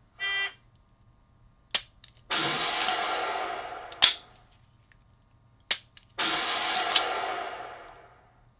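Dry-fire training software sounding a short electronic start beep, then sharp clicks from a laser-cartridge pistol being dry-fired and handled. Twice a click is followed about half a second later by a played gunshot sound effect, whose echoing tail fades out over about two seconds.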